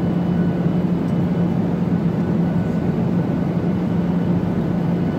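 Steady drone of a jet airliner's cabin in flight: engine and air-conditioning noise with a constant low hum.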